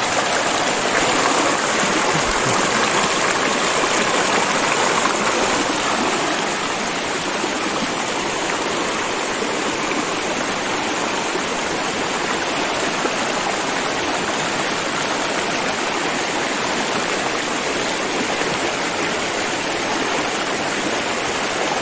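Fast river water rushing and splashing over rocks, a steady rush that eases a little after about six seconds.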